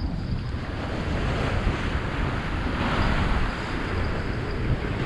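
Strong wind buffeting the microphone with a heavy rumble, over the wash of a rough, choppy sea.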